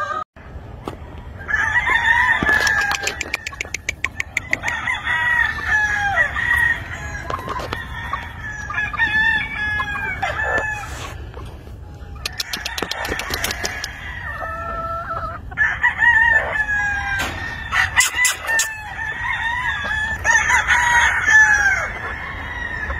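A flock of gamefowl chickens calling and clucking, many birds at once, with roosters crowing among them.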